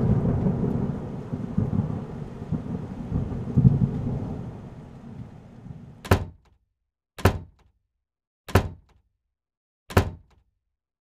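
Dramatic sound effects added in editing: a deep rumbling boom that fades away over about six seconds. Then four separate heavy booming hits a little over a second apart, with dead silence between them.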